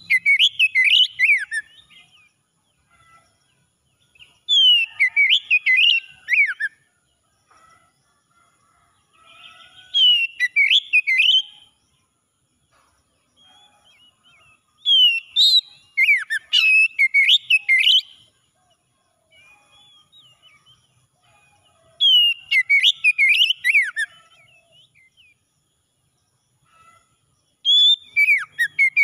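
Male Oriental magpie-robin singing, in loud phrases of whistled notes sweeping up and down, each about two seconds long and repeated every five to six seconds with pauses between.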